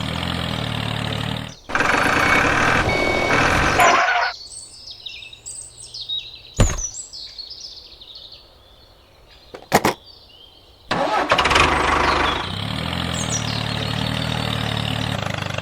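An engine running steadily with a low hum for about four seconds, then dropping away. During the quieter stretch there are high chirps and two sharp clicks. The engine returns about eleven seconds in.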